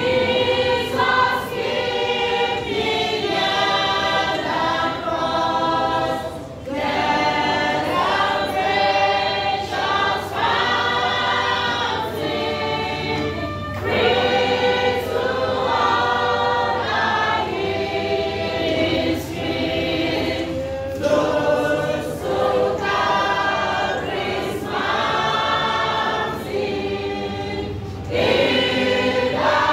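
Church choir of mostly women's voices singing a hymn together, phrase after phrase with short breaths between.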